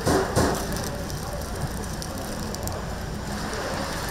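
Chicken deep-frying in hot oil, a steady sizzle, with two short knocks in the first half second.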